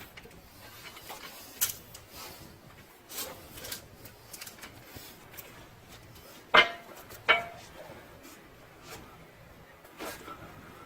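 Hand tools and metal parts being handled: scattered light clicks and rubbing, with two sharp metallic clanks that ring briefly, less than a second apart, a little past the middle.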